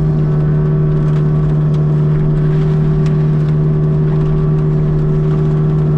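Kubota U55-4 mini excavator's diesel engine running steadily at high throttle to drive its hydraulic mulcher head, a constant loud drone with a strong low hum.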